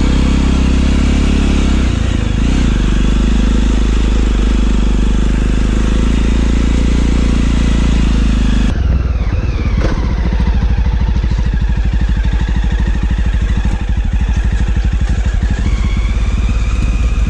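Motorcycle engine running while riding. About nine seconds in, the sound changes abruptly from a steady engine note to a rapid, even exhaust beat.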